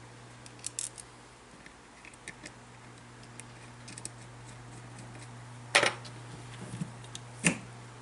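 Small tools and parts being handled on a workbench: light scattered clicks and taps, then two louder sharp knocks a second and a half apart near the end, over a steady low hum.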